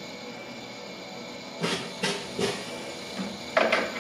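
Coffee beans shaken from a bag into the metal hopper of a Mill City 1 kg drum roaster in short bursts. There are three about half a second apart, then a quicker cluster near the end, over the steady hum of the running roaster.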